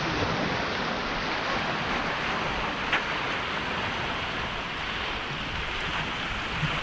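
Steady rush of wind and water, with a single sharp click about three seconds in.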